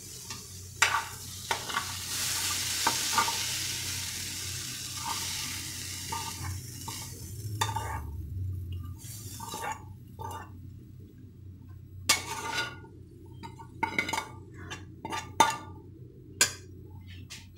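Hot fried tomatoes and capsicum sizzle for the first several seconds as they are scraped from the frying pan into a steel bowl of boiled corn. After that a metal spoon stirs them in, clinking and scraping sharply against the steel bowl.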